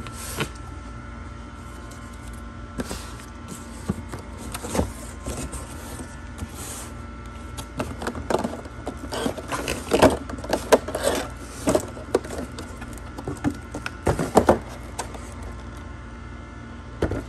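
A cardboard box and clear plastic blister packaging being opened and handled: irregular crackles, taps and knocks, sparse at first, then thick and loudest over the middle stretch, over a steady background hum.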